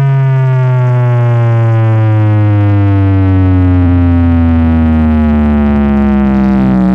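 A single long, slowly falling electronic bass tone with many buzzy overtones, played very loud through a truck-mounted stack of sound-system loudspeakers.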